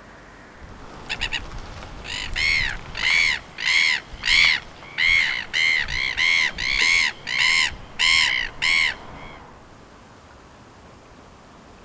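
Silver gull calling: a few short clipped notes about a second in, then a run of about a dozen loud squawks, each rising and falling in pitch, that stops near the end. A steady hiss of sea and wind lies behind.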